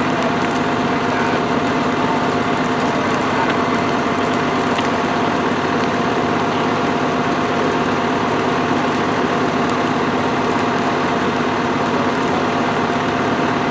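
A vehicle engine idling steadily, a constant hum with a few fixed tones over a steady noise, with faint ticks.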